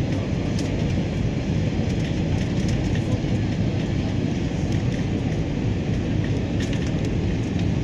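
Steady engine and airflow noise inside an airliner cabin during the descent to land, an even, unbroken rumble with no change in level.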